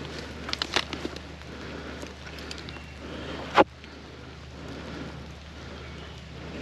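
Steady rustling hiss, like rain or wind on the microphone, with a few small clicks in the first second and one short sharp crack about three and a half seconds in.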